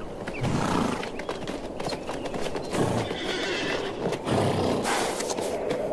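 Namib feral horses: three or four short, low calls a second or two apart, over the clatter of hooves.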